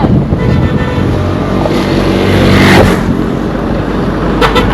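A motor vehicle's engine running close by, its sound swelling around the middle as it passes. Two brief sharp sounds come near the end.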